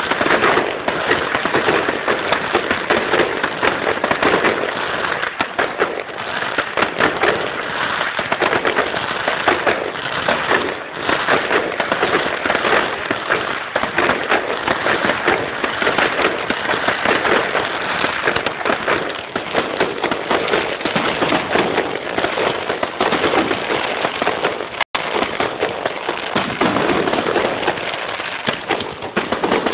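Fireworks display: a dense, continuous barrage of bangs and crackles with no let-up. It cuts out for an instant about 25 seconds in.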